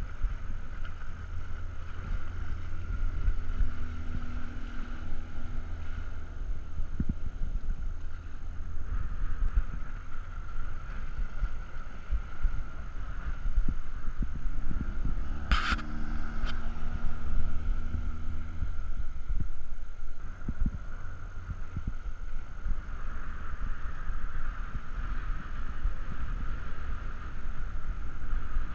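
Honda 15 hp four-stroke outboard motor running at speed on a passing boat over a heavy low rumble. Its drone is strongest and bends in pitch a little past the middle as the boat comes closest. There is one brief sharp click at about the same point.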